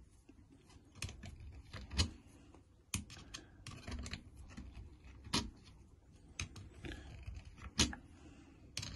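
Scattered small clicks and knocks of a hand screwdriver and plastic RC car parts being handled while a metal screw is worked by hand into a freshly drilled hole, cutting its thread in the plastic. The clicks are irregular, a few seconds apart, with faint scraping and handling noise between them.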